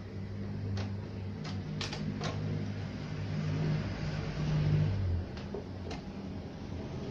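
Light plastic-and-board clicks and knocks as a TV's circuit board is lifted out of its chassis and set down on the plastic cabinet, a few in the first two seconds and two more about five and six seconds in. Under them runs a steady low hum that swells for a couple of seconds in the middle.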